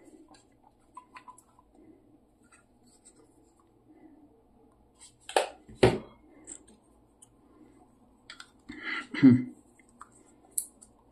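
Small plastic camera gear being handled by hand: a DJI Mic Mini charging case and 3D-printed mount pieces. There are two sharp clicks about five and a half seconds in, then a short cluster of clicks and rattling about nine seconds in.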